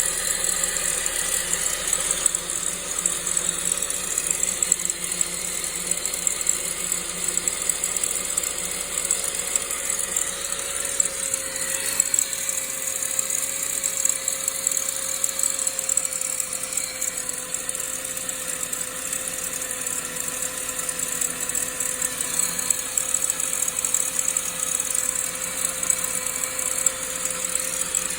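Saab 9-5's B205E 2.0-litre turbo four-cylinder engine idling steadily with a rattling noise from the belt or timing-chain area, over a steady whine.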